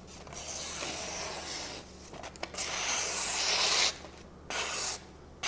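A Hitohira Tanaka Blue #1 carbon-steel gyuto slicing through a hanging sheet of paper with a soft, even hiss: two long strokes, then a short one near the end. The cut is this quiet because the edge is very sharp straight out of the box, having scored 120 on a sharpness tester.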